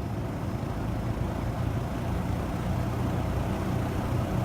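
Large Kenmore three-speed reversible box fan with a Westinghouse motor, running on low speed in exhaust direction: a steady rush of air over a low motor hum, growing slightly louder.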